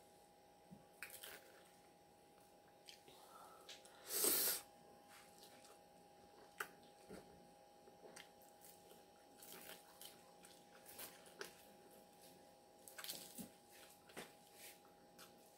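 Quiet eating sounds of a leafy salad: chewing and crunching, with light clicks and scrapes of a plastic fork in a glass bowl. About four seconds in there is one short, loud rush of noise.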